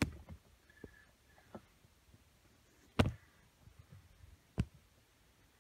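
Quiet, with a few separate sharp clicks and taps of handling, the loudest about three seconds in and another about a second and a half later.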